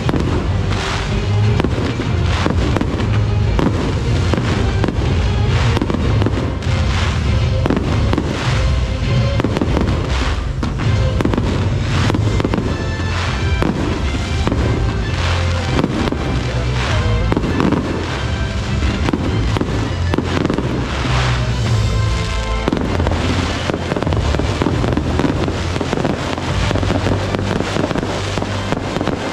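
Fireworks bursting and crackling in rapid succession over loud show music with a heavy bass.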